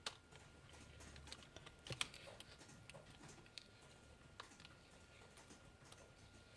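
Near silence broken by faint, scattered clicks and taps of a silicone spatula against a stainless steel mixing bowl as thick cake batter is scraped out into a loaf pan.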